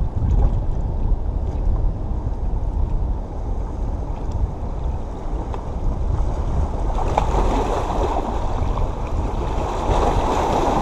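Wind rumbling on the microphone over seawater washing against the rocks; from about seven seconds in the wash grows louder and hissier as a wave surges in among the rocks.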